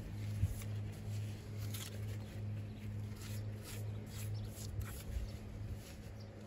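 Light, irregular scratching and scraping strokes over a steady low hum that swells and fades about twice a second.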